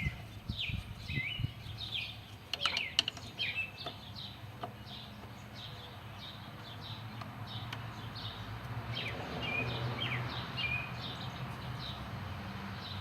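Small birds chirping over and over in short, quick falling notes, with a few sharp clicks about two and a half to three seconds in and a low steady hum underneath.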